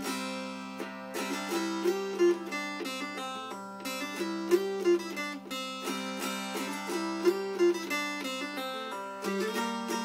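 A 1998 Folkcraft butternut-and-walnut fretted mountain dulcimer played solo, strummed with a pick in quick strokes: a melody fretted on one string over a steady drone, with a short melodic phrase coming round every couple of seconds.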